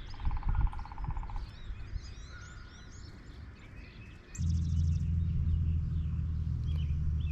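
Small songbirds chirping and calling, with a rapid low trill near the start. About four seconds in, a steady low hum sets in and stays, louder than the birds.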